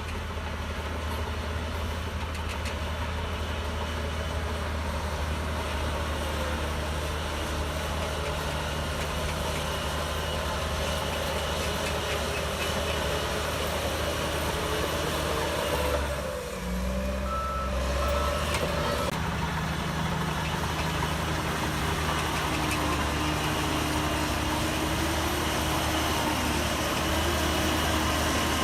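Diesel engine of a Shantui DH17C3 crawler bulldozer running steadily under load, with a brief dip and change in its note a little past halfway through.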